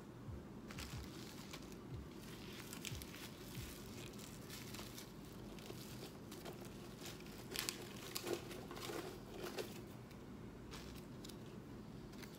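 Crinkling of the white protective wrapping on a handbag's handles as a hand works at it and pulls it loose, with a few sharper, louder crackles between about seven and a half and nine and a half seconds in.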